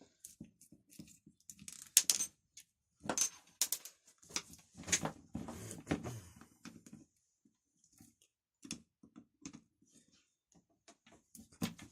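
Parts of a chainsaw recoil starter and hand tools being handled: irregular clicks, knocks and light clatter, with a few louder knocks scattered through.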